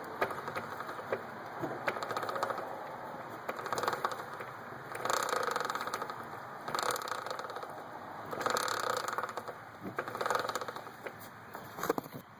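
2006 Yamaha R1's drive chain ticking: a fast run of small mechanical clicks that swells louder about every second and a half to two seconds.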